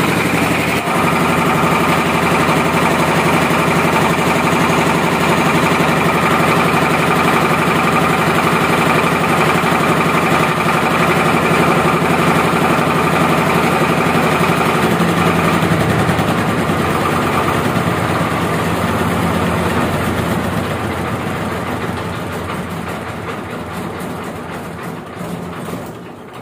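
Hand-crank-started single-cylinder diesel engine running as it is warmed up, a steady loud chugging; about halfway through its note changes, then it slows and dies away to a stop near the end.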